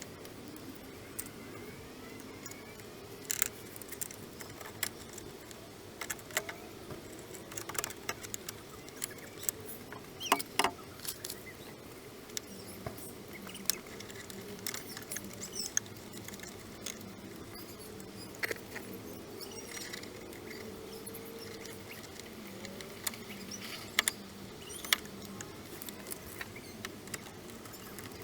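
Irregular light clicks, taps and small metallic rattles of hand work on a car door, with no power tool running.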